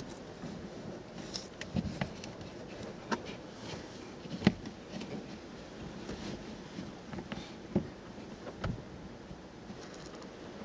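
Hands working a car seat's fabric cover, pressing and tucking it along the cushion edge: soft rustling with scattered sharp clicks and taps, one louder click near the middle.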